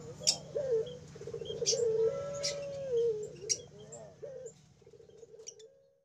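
Ringneck doves cooing: long low coos that step up and down in pitch, broken by short arched notes, with sharp high chirps in between. It fades out just before the end.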